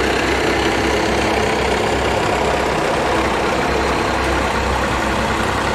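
A small vintage tractor's engine running steadily at low speed as it drives slowly past, with a vintage truck's engine running behind it: an even, unchanging engine hum.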